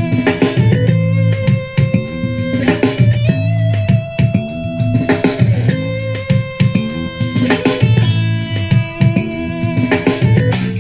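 Music led by electric guitar over a strong bass line and a steady beat, played as a sound test of a portable Bluetooth speaker.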